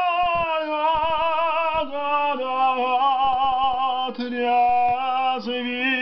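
A solo voice singing a long drawn-out vowel over a karaoke backing track, held across several notes with vibrato and stepping down in pitch about two seconds in, then moving again near the end.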